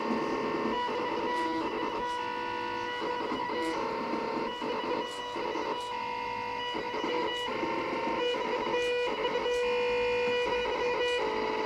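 Stepper motors of a homemade CNC pen plotter whining in steady tones that switch pitch every second or so as the pen is driven across the paper, with faint short ticks now and then.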